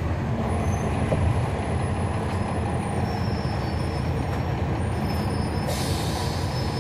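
Cummins ISL9 straight-six diesel engine of a 2011 NABI 40-SFW transit bus running steadily, heard from inside the bus. A short hiss of released air from the bus's air brakes comes about six seconds in.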